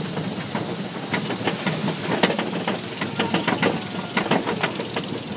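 Amusement ride machinery running: a rapid, uneven run of clacks and knocks over a steady rumble.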